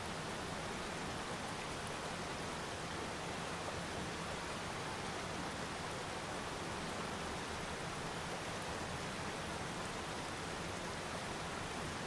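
Mountain waterfall pouring over rocks: a steady, even rush of falling water.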